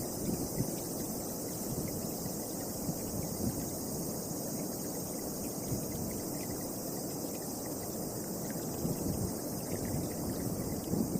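Strong wind blowing in gusts, rumbling on the microphone, over a steady high-pitched chirring of insects.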